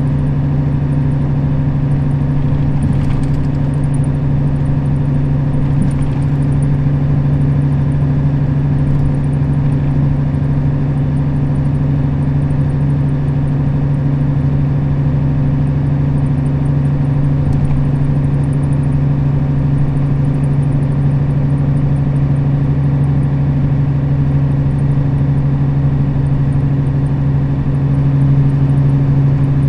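Nissan Diesel KL-RA552RBN bus's diesel engine running steadily at an even speed, a constant low drone over road noise, growing slightly louder near the end.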